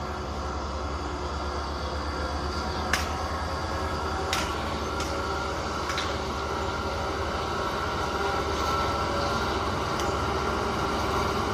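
Engine of an unladen multi-axle box-girder carrier running steadily as it drives over a gravel road, with a few sharp clicks in the first half, growing gradually louder as it draws near.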